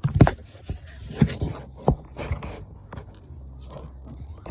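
Cardboard box being cut open: a blade scraping and rasping through packing tape and cardboard in several short, sharp strokes.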